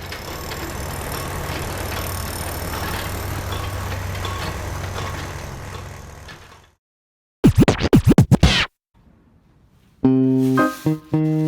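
Intro music and sound effects: a steady noisy sound with a low hum for about six seconds, then a short burst of fast back-and-forth pitch sweeps like a record scratch, then keyboard music starting about ten seconds in.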